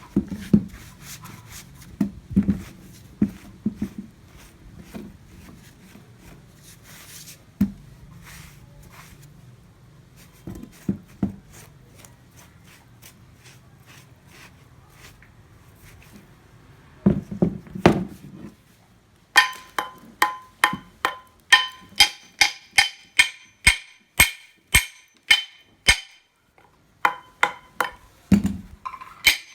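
Hammer work on a steel axe head: scattered dull knocks and handling at first, then from about two-thirds of the way in a steady run of hammer blows on metal, about two a second, each with a bright ring.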